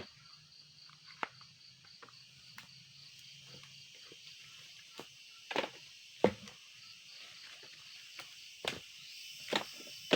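Insects chirping in a steady high pulsing trill, about four pulses a second, with a few scattered knocks and clicks; the loudest knock comes about six seconds in.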